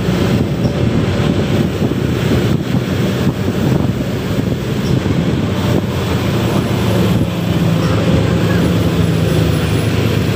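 Wind rushing over the microphone of a moving motorcycle, over the steady low drone of engines from a log-laden truck and a scooter close ahead.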